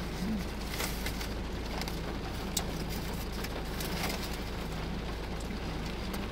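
Steady low hum of the car heard from inside the cabin, with light rain on the car and a few faint clicks.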